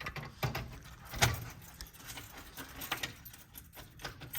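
Irregular metal clicks and rattles as a fire alarm pull station is worked by hand, with the loudest knock about a second in.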